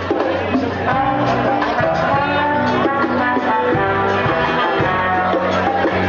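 Live Haitian jazz band playing an upbeat groove: hand drums and drum kit keep a steady beat under guitar and bass, with horns (saxophone and trombone) carrying the melody.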